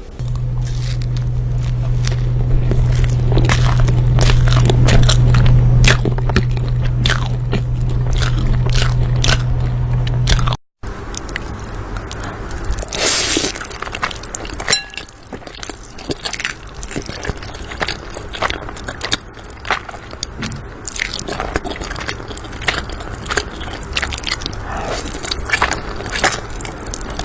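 Close-up chewing and crunching, a dense run of irregular sharp crunches. A steady low hum sits under the first ten seconds, then the sound cuts out briefly and the crunching goes on without the hum.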